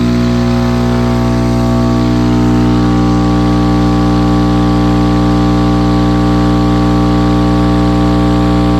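A 15-inch Crossfire XS V4 car-audio subwoofer playing a steady, loud, deep bass tone with strong overtones, driven hard off wall power.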